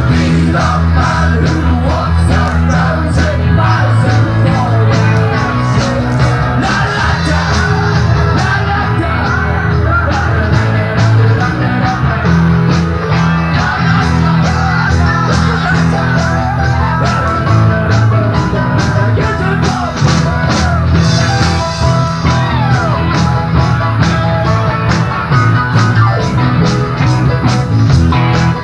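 Live rock band playing loudly: a drum kit keeps a steady, fast beat under bass, electric guitar and keyboards.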